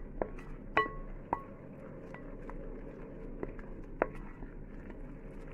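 A spoon stirring flour into a wet yogurt, egg and oil mix in a bowl, with soft scraping and squishing and several sharp clinks of the spoon against the bowl, the loudest a little under a second in.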